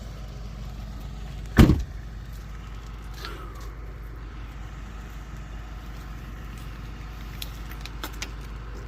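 A single loud thump on the pickup truck about one and a half seconds in, over a steady low rumble, with a few light clicks near the end.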